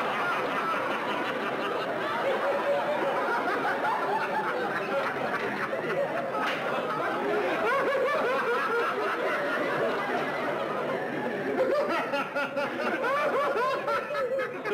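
Men laughing hard and without a break, several voices at once, with a studio audience laughing along.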